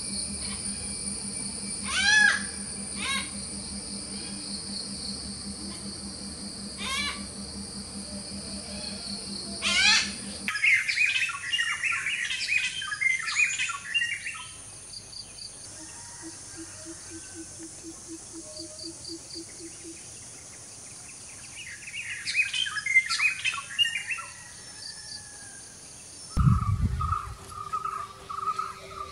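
Malabar grey hornbills calling: a few single chuckling notes, then two bursts of rapid cackling, laughter-like calls. A steady high insect drone runs under the first part and stops about a third of the way in.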